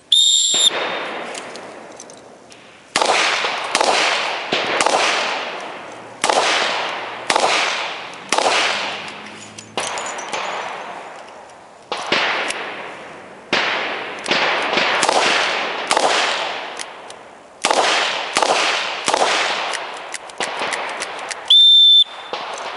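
Smith & Wesson 686 Plus revolver fired in a timed string of single shots about a second apart, each with a ringing tail, with a longer pause near the middle for a moon-clip reload. An electronic shot-timer beep sounds at the start and another near the end.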